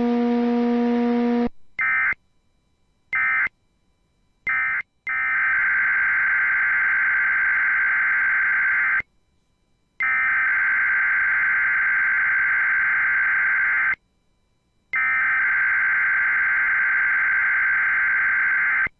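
Emergency Alert System (SAME) digital data bursts on NOAA Weather Radio: after a low tone ends, three short screechy data bursts about a second apart, then three longer bursts of about four seconds each with a second of silence between them, the coded header that opens a Required Weekly Test.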